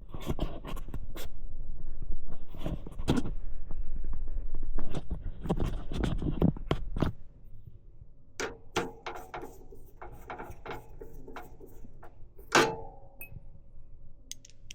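Computer parts being handled and fitted into a PC case: a busy run of clicks, knocks and rustling for about seven seconds, then scattered clicks and one sharper knock near the end.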